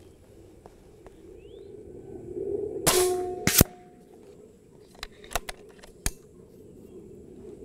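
Benjamin Bulldog .357 big-bore PCP air rifle firing one shot: a loud sharp crack, with a second, louder sharp report about half a second later. A few lighter clicks follow a second and a half later as the rifle's action is worked.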